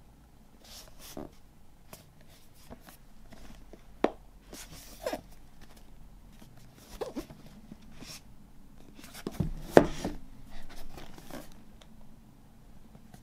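Cardboard box set being handled: a black inner box sliding out of its printed card sleeve, with card rubbing and scraping and a few sharp knocks, the loudest about ten seconds in.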